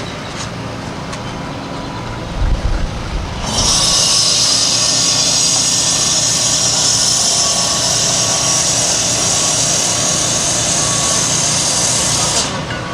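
Track-repair machinery at work: a low thump, then a loud, high rushing noise that starts about three and a half seconds in, holds steady for about nine seconds and cuts off near the end.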